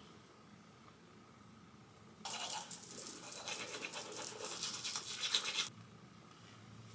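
Teeth being brushed with a toothbrush: rapid scratchy scrubbing strokes that start about two seconds in and stop suddenly a few seconds later.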